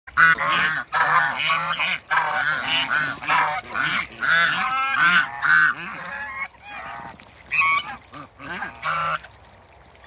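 African geese honking loudly, many harsh calls overlapping for about six seconds, then thinning to a few separate honks near the end.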